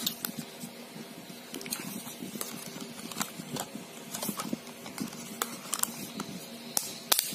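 Handling noise from a Huawei E5573 pocket Wi-Fi router being turned over in the hands: scattered light clicks and taps of its plastic casing against fingers, the sharpest a few close together near the end, over a faint steady hum.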